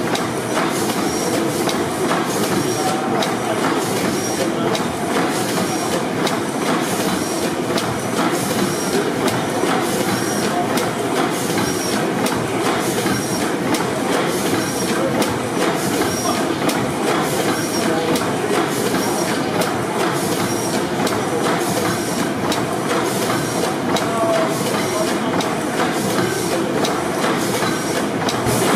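600 HP Snow pipeline compressor engine, a double-acting four-stroke gas engine with tandem cylinders, running steadily with a dense mechanical clatter from its rods and valve gear. A faint high squeak repeats about once a second.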